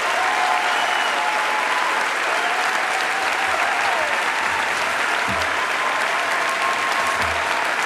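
Large audience applauding steadily, a dense continuous clapping from a full auditorium.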